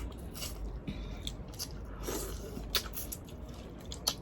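Eating boiled seafood by hand: scattered crunches, clicks and wet chewing and squishing sounds.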